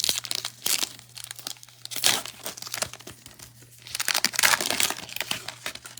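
Foil trading-card pack wrapper being torn open and crinkled in irregular bursts, loudest about two seconds in and again around four and a half seconds in.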